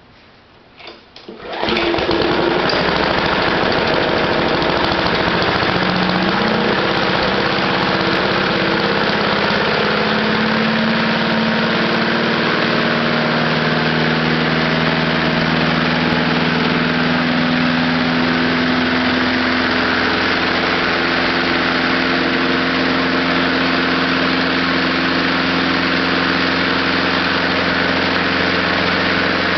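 Lawnmower engine catching about a second and a half in after a few light clicks, then running steadily on gasoline vapor drawn through a wick rather than on a carburetor; its speed climbs a little in the first several seconds and settles.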